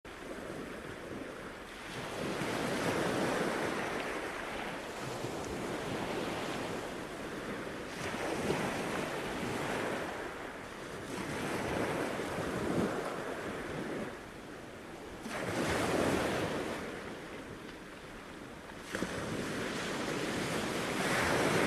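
Surf washing up on the beach, swelling and fading every few seconds, with wind on the microphone.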